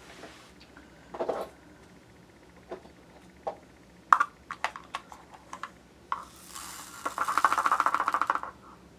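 Small diamond painting drills clicking and clattering: scattered taps, then a fast rattle lasting about a second and a half near the end, as the drills are shaken or poured.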